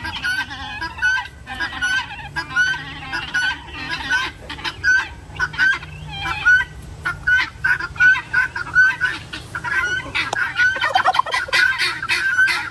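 Guinea fowl and turkeys calling over and over in a noisy chorus, short harsh calls about twice a second that grow busier and overlap near the end. The birds are worked up by a dog chasing them.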